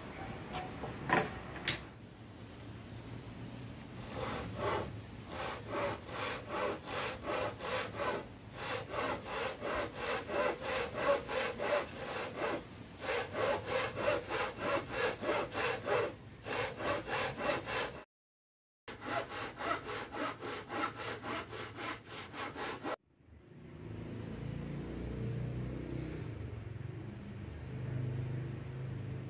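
Handsaw cutting through a wooden board with steady back-and-forth strokes, about two to three a second. The sawing drops out briefly once, then stops, leaving a low hum.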